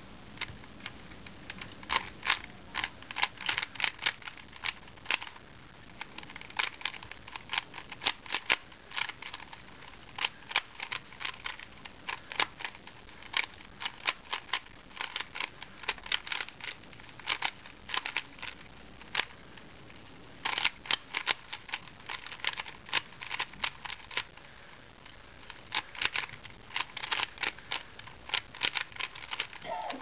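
A 3x3 Rubik's Cube's plastic layers being turned quickly by hand: rapid clicking and clacking in flurries, broken by brief pauses.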